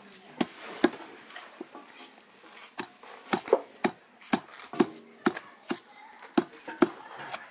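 Long wooden pestle pounding food in a stone mortar, a dull thud about twice a second with some short pauses between strokes.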